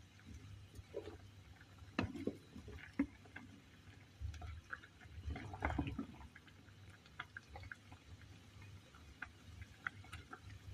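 Pot of water with fruit and spices simmering: faint, irregular bubbling pops, with a few louder knocks about two seconds in and around the middle.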